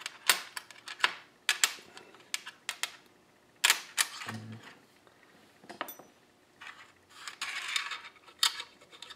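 Steel balls from a Ford power steering gearbox's recirculating-ball rack piston dropping and clicking onto a sheet-metal tray: a scatter of sharp, irregular clicks, thickest in the first three seconds, then fewer and further apart.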